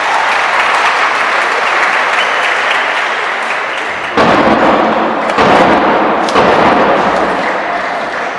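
Basketball crowd in a sports hall clapping and cheering, swelling suddenly about four seconds in and twice more over the next two seconds, with some low thuds among it.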